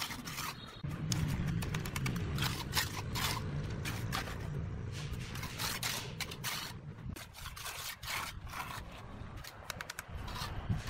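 Hand trowel scraping and smoothing wet concrete in the steel form of a balustrade's top rail, in many short, irregular strokes, with a low rumble in the first half.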